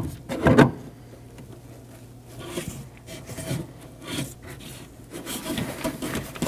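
Door lock actuator being shifted into place inside a car door, scraping and knocking against the door's inner panel as its holes and connector are lined up. Irregular rubbing and small knocks, loudest about half a second in.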